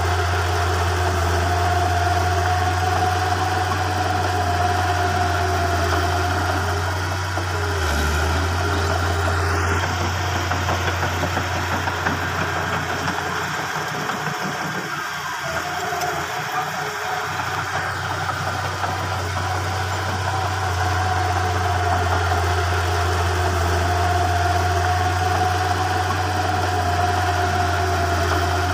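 Komatsu crawler bulldozer's diesel engine running while it pushes earth fill: a deep steady hum with a steady higher whine above it. The low note drops away briefly about halfway through, then comes back.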